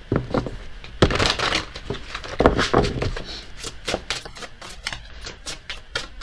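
Oracle cards being shuffled by hand: a string of sharp card clicks and slaps, coming faster and closer together from about four seconds in.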